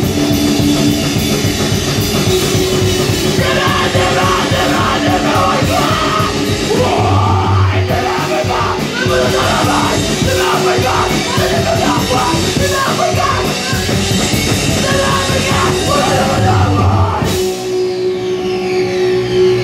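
Live punk-metal band playing loud: electric guitar, drum kit and a singer yelling into the microphone. Near the end the drums drop out and a held note rings on.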